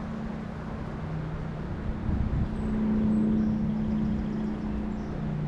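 Motor vehicle traffic from a nearby road: a low rumble with a steady engine hum that swells about two to four seconds in.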